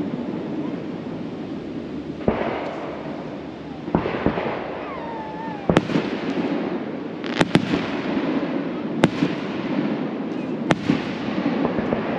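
Aerial fireworks shells bursting: about eight sharp bangs a second or two apart, some in quick pairs, each trailing off in crackle.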